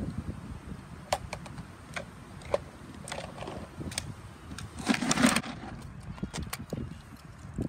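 Light plastic clicks and knocks as a reacher-grabber tool tips a toy mini waste bin over a plastic wastebasket and sets it down, with a louder rustling and scuffing burst about five seconds in.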